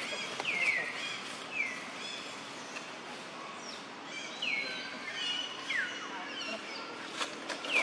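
Repeated short, high animal calls that slide down in pitch, several overlapping at different pitches, with a few faint clicks over steady outdoor hiss.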